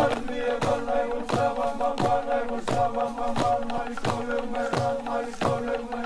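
Fijian meke chant: a chorus of voices singing held notes over a steady beat of struck bamboo stamping tubes, about three strikes a second.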